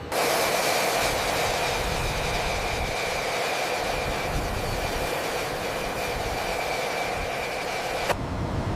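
Jet engine running steadily: a loud rushing hiss with a steady high whine. It starts suddenly and cuts off abruptly about eight seconds in, leaving a lower rumble.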